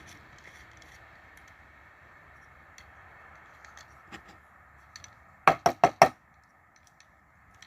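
About five sharp knocks in quick succession, a little over halfway through, after a few light clicks: a CO2 airsoft pistol magazine being rapped against a hard surface to shake the spent CO2 capsule loose.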